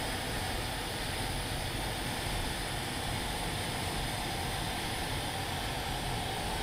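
Steady rushing noise of an L-39 Albatros jet trainer in flight, heard from inside the cockpit, with a faint steady hum under it.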